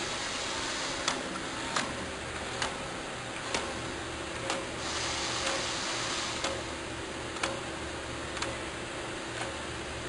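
Hydraulically actuated drilling choke on a test stand, driven from its control panel: a steady hiss and hum with a sharp click about once a second.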